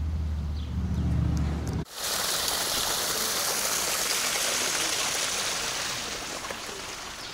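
Small mountain stream running fast down a narrow stone-lined channel: a steady rush of water. It starts abruptly about two seconds in, after a low rumble, and eases slightly near the end.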